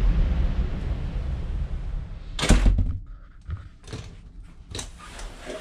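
Wind and sea noise coming through an open cruise-ship balcony sliding door is cut off about two and a half seconds in, as the door is pulled shut with a loud thunk. A few faint knocks follow in the quiet cabin.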